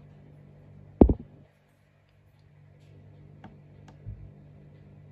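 Clear plastic tub and lid being handled: one loud knock about a second in, then a couple of light clicks and a softer thump near the end as tweezers nudge the lid.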